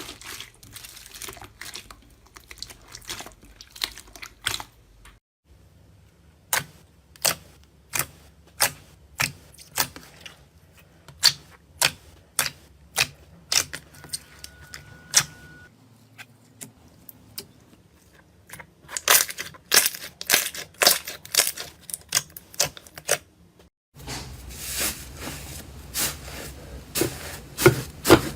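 Slime being pressed and worked by hand, giving a run of sharp, wet pops and clicks about one to two a second, thicker and faster in the last few seconds.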